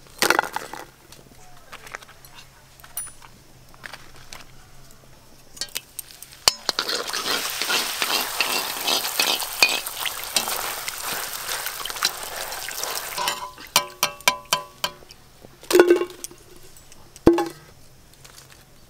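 Fuchka (pani puri) frying in hot oil in a kadai, a sizzle that swells about a third of the way in and drops off about two-thirds through as the puris puff up, with clicks and clinks of a metal slotted spoon against the pan.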